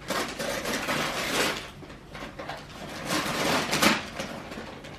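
Wrapping paper rustling and crinkling as a toddler tears open a Christmas present, with two louder spells of tearing.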